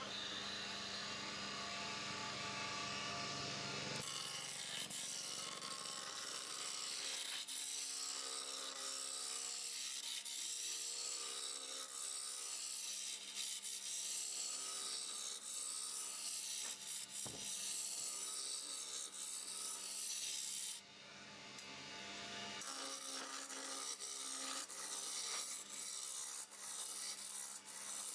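Hand turning tool cutting a spinning oak spindle on a lathe: a steady dry scraping as shavings peel off, over a faint steady hum. The cutting drops away briefly about three-quarters through, then starts again.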